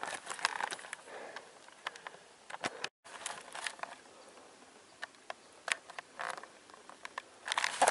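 Footsteps and rustling on dry pine needles, leaves and patchy snow: irregular crunches and crackles, with a moment's silence about three seconds in.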